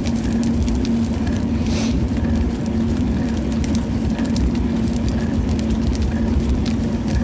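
Steady road rumble and wind on the microphone from riding a bicycle along a paved path, with a constant low hum and scattered light rattling clicks.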